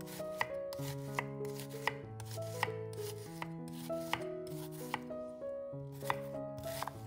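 Knife chopping food on a cutting board: single sharp cuts, about one or two a second, over background music of sustained melodic notes.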